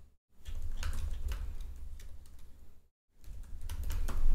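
Computer keyboard keys being typed, separate clicks at an uneven pace as a short name is entered, over a low hum.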